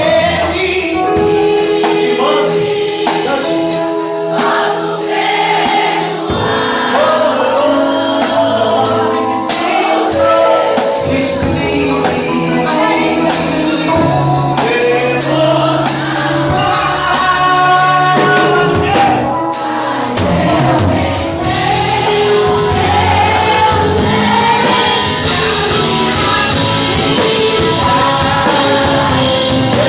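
Live gospel worship song from a church band: a woman singing lead into a microphone with the congregation singing along, over six-string electric bass and keyboard. The bass comes in about six seconds in.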